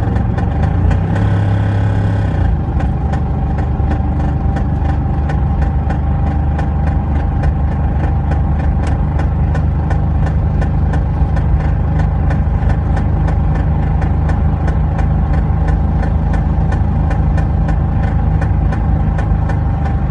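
Range Rover P38's 4.6 V8 running steadily on the move, a low drone with a rapid, regular ticking of about three a second that comes in a couple of seconds in. This is the loud noise the owner hears from about 2,000 rpm under load.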